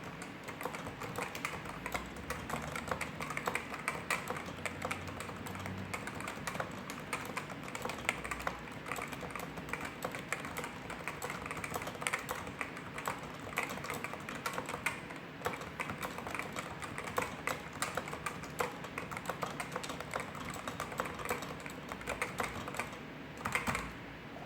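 Continuous fast typing on a Realforce RGB keyboard with Topre electrostatic capacitive switches: a dense, irregular run of keystrokes, briefly easing off near the end before a short cluster of strokes.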